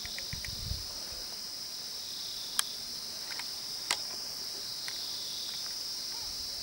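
Steady, unbroken high-pitched drone of insects, with two sharp clicks about a second apart near the middle.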